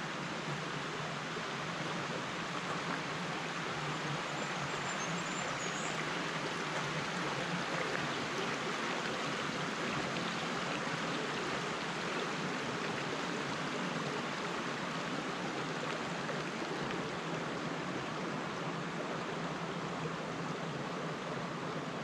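Shallow river running over rocks and stones, a steady rush of babbling water.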